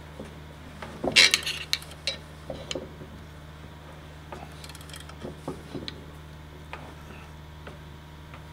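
Clicks and metallic clinks of a ratchet wrench turning the centre screw of a bearing puller on an electric motor shaft, with steel tools knocking together. The loudest cluster of clanks comes about a second in, then scattered lighter ticks.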